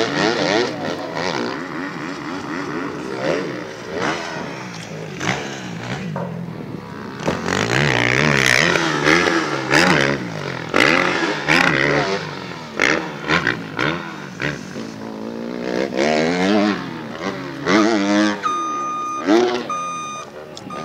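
Motocross bike being ridden over jumps, its engine revving up and dropping off again and again, the pitch climbing with each burst of throttle and falling as it eases off.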